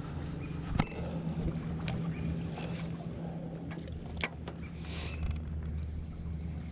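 Bow-mounted electric trolling motor running with a steady low hum. A couple of sharp clicks are heard, one about a second in and one near the middle.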